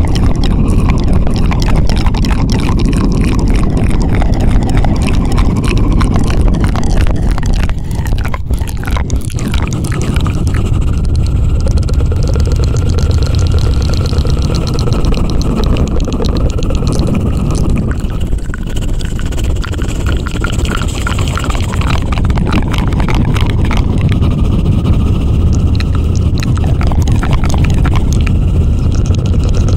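ASMR 'helicopter' trigger made right at the microphone: a loud, fast, fluttering rumble of rapid clicks over a deep low rumble, running on without a break apart from a brief dip.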